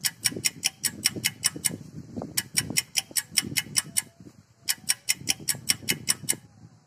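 Rapid, even ticking, about six sharp ticks a second, in three runs separated by short pauses.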